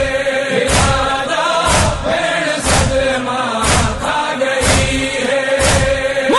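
Voices chanting a noha, a Shia lament, in long held tones, over a heavy beat that strikes about once a second.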